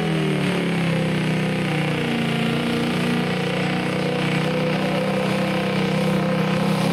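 Diesel pickup engine of the 2.6-inch turbo class running steadily after its pull, its pitch settling a little lower in the first second and then holding even.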